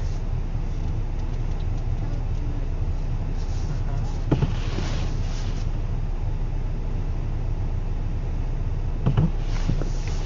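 Steady low engine rumble of a stationary car, heard from inside the cabin by a dashcam, with two short knocks about four seconds and nine seconds in.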